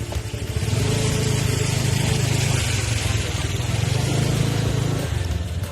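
Car engine idling, getting louder about a second in, with a hiss over the low running.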